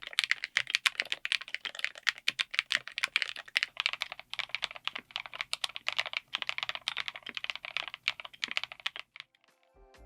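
Fast, continuous typing on a mechanical keyboard fitted with linear switches and SA-profile keycaps: a dense run of keystroke clacks that stops about nine seconds in. Music begins faintly just after.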